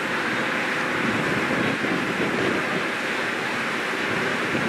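Steady rushing noise of wind and water heard from the deck of a moving ferry, even throughout with no distinct tones.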